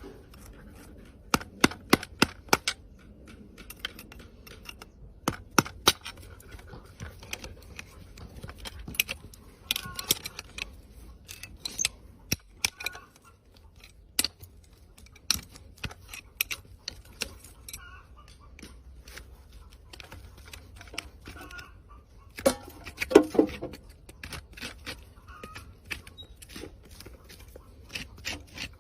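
Farrier's hand tools working a horse's hoof: irregular sharp clicks and snips, with a louder flurry of them about three-quarters of the way through.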